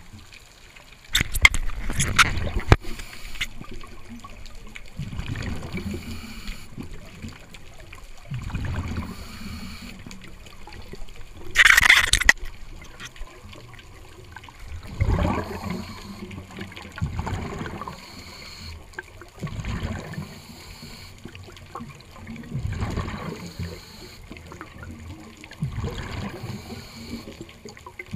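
Scuba diver breathing through a regulator underwater: low bubbling exhalations recur every two to three seconds, with one louder hiss about twelve seconds in.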